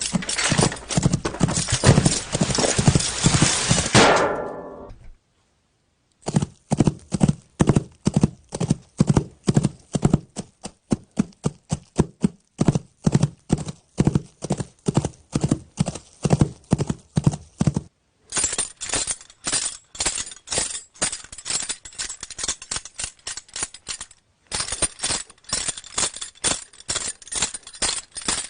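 Clip-clop of hoofbeats as a sound effect: a quick run of knocks fading out about four seconds in, then, after a second of silence, a steady trotting rhythm that cuts off suddenly twice and starts again.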